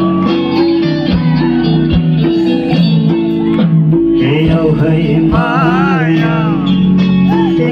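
Live band playing amplified music at a sound check: electric guitar and bass chords over low drum thumps, with a voice singing a wavering line near the middle.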